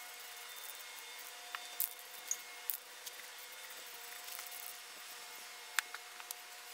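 Aerosol spray-primer can in use: a few short spits and sharp clicks, scattered through a faint, steady background hum.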